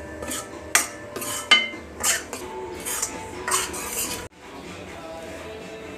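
A steel spatula scrapes and stirs wheat flour against the bottom of a stainless steel kadhai in repeated strokes as the flour is roasted with a little ghee. The scraping cuts off abruptly about four seconds in, leaving a faint steady background.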